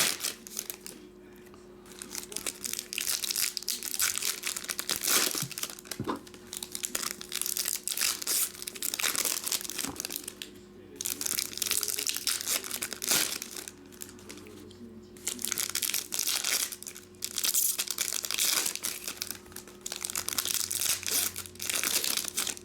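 Wrappers of baseball trading card packs being torn open and crinkled, in repeated bursts of crackling with short pauses between.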